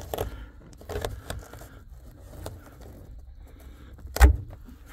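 Plastic headliner push-pin clips being pressed by thumb into the roof of a 1994–2001 Dodge Ram cab: a few light clicks and knocks, then one sharp, louder knock about four seconds in as a clip is pushed home.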